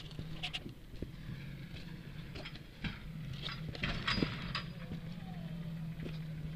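Jeep engine running steadily at low revs while crawling over a rock garden, with scattered sharp knocks and clatter from rocks under the tyres.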